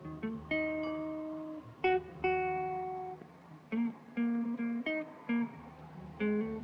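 Background film music: a guitar picking single notes, the first few left ringing for a second or so, then a quicker run of plucked notes.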